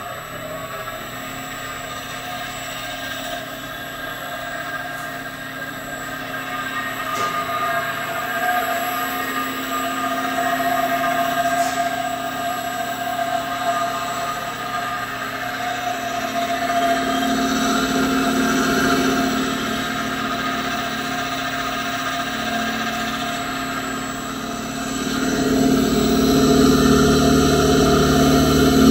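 Quadro Comil 197 conical mill running empty, a steady motor-and-impeller hum and whine with several fixed tones, growing louder over time and most of all near the end.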